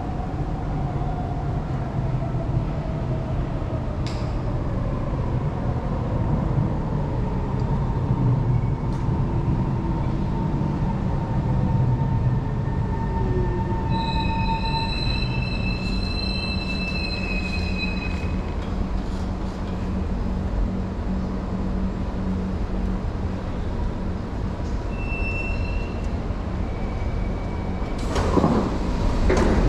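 MRT train pulling into an underground station behind platform screen doors. Its motor whine falls steadily in pitch as it brakes, the wheels squeal with a high ringing for a few seconds around the middle as it comes to a stop, and near the end the doors open with a short clatter.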